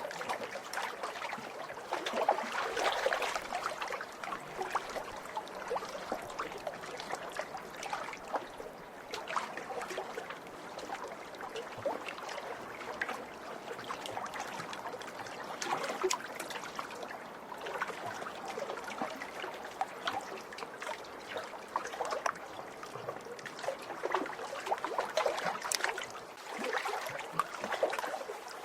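Small lake waves lapping and splashing against the shore: a continuous watery wash of many small splashes, swelling louder twice.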